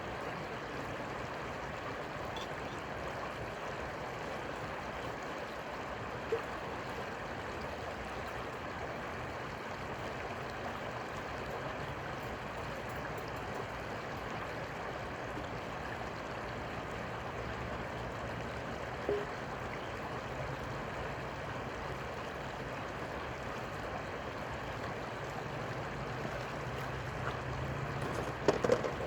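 Steady rush of flowing river water, with a single brief knock about six seconds in, another a little before twenty seconds, and a quick cluster of louder knocks near the end.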